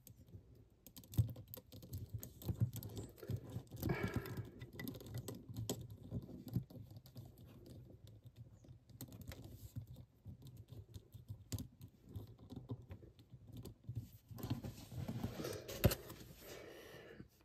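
Small plastic clicks and rubbing from an S.H.Figuarts action figure being handled, as its hands are pushed onto the wrist ball joints and its arms are posed. The clicks come irregularly, with a few sharper ones about a second in, around four seconds in and near the end.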